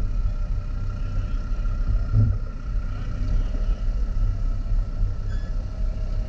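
A four-wheel-drive vehicle's engine running as it crawls along a rough track: a low, steady rumble.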